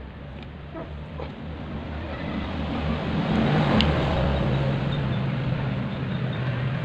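A motor vehicle passing by: engine and road noise over a steady low hum, building to its loudest about halfway through, then fading.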